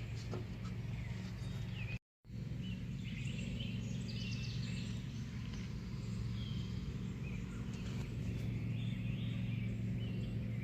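Steady low hum with faint bird chirps over it. The sound cuts out completely for a moment about two seconds in.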